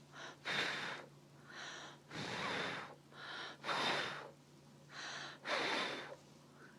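A young child making a breathy huffing sound, drawing in and blowing out hard about four times in a row, each short in-breath followed by a longer, louder out-breath.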